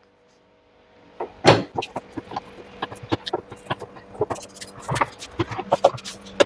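Nuts being tightened on a washing machine's tub assembly: many irregular metallic clicks and knocks from the tool and fittings, starting about a second in, over a faint steady hum.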